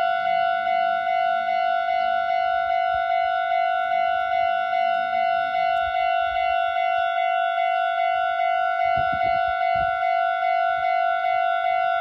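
Japanese railway level-crossing warning bell ringing with an electronic tone, repeating evenly at a slightly fast tempo of a little over two strokes a second.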